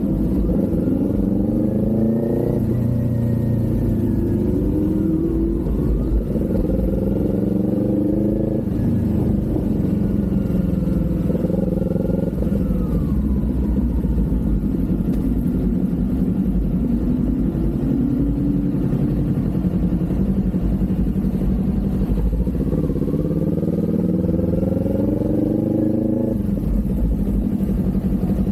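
Kawasaki Z400's parallel-twin engine under way, revs climbing and dropping sharply at each upshift several times, then holding steady at a cruise before another climb and upshift near the end.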